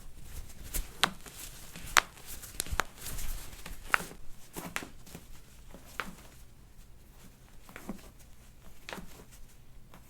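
Irregular sharp clicks and taps with light rustling, from hands-on soft-tissue work on a patient on a treatment table. The clicks come about once a second at first and thin out toward the end.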